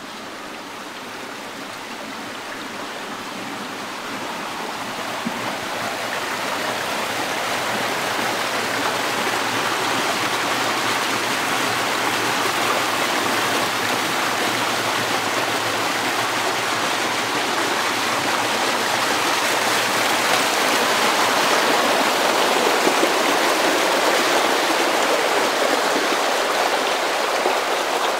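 Stream water rushing, growing louder over the first ten seconds or so and then running steady.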